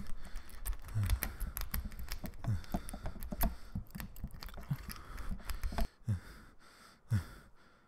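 Suspense sound design: a dense scatter of sharp clicks and ticks over deep, falling booms. Most of it cuts out about six seconds in, and one last boom follows about a second later.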